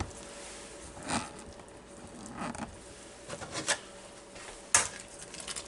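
Scattered light clicks and rustles of a camera being handled and repositioned, with one sharper click near the end.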